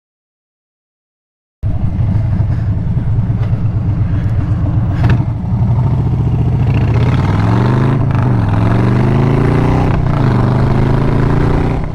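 Motorcycle engine cutting in abruptly loud after a second and a half of silence, then accelerating: its pitch climbs, drops briefly at a gear change and climbs again twice.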